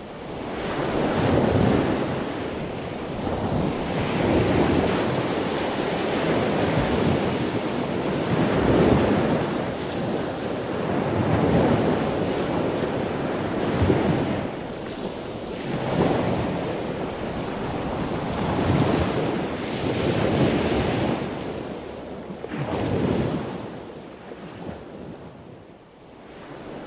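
Surf breaking on a beach, waves washing in one after another every two to three seconds, with wind rumbling on the microphone. The surf grows quieter near the end.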